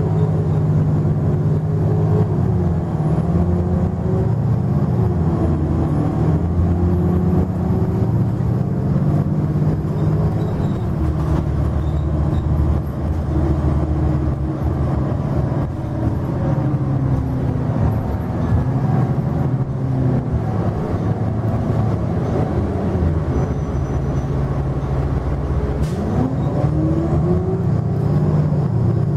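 Interior of a Nova LFS city bus under way: its Cummins ISL9 inline-six diesel and Allison B400R automatic transmission running steadily, the engine pitch rising and falling several times as the bus changes speed.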